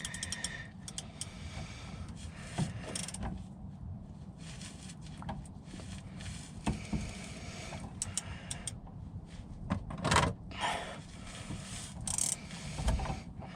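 Hand tools clicking, knocking and scraping as a socket and ratchet are worked onto the water drain of a diesel fuel filter housing under the car, with a few sharper knocks near the end.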